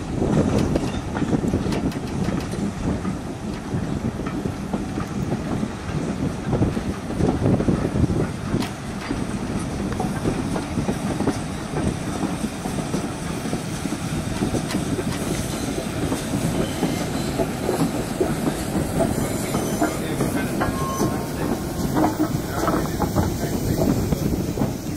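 Steam-hauled passenger train rolling past close by, its wheels clattering over the rails in a continuous rumble.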